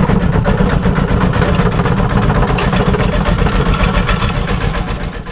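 Single-cylinder diesel engine of a Thai 'E-taek' two-wheel walking tractor running at a steady pace while it pulls a passenger trailer, heard from the trailer close behind it. The engine's rapid, even firing stays loud and eases a little near the end.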